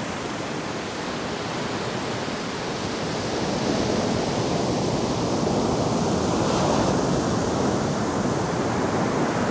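Ocean surf: a steady rushing wash that grows a little louder a few seconds in.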